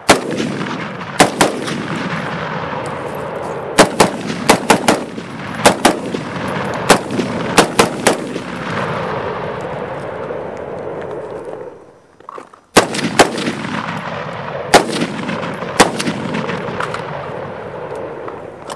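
Semi-automatic gunfire from an AR-15 pistol with a roughly 7-inch barrel, firing steel-cased Russian 5.56/.223 rounds. Loud single shots come in quick, irregular strings, with a short break about twelve seconds in before the firing resumes.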